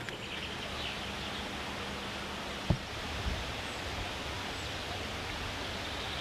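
Steady outdoor hiss of wind and rustling vegetation, with one sharp knock a little under halfway through.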